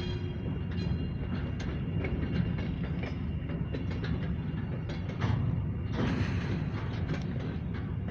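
Short freight train of grain hopper cars rolling slowly through a yard: a steady low rumble with scattered clicks and clanks from the wheels and cars, and a brief hiss about six seconds in.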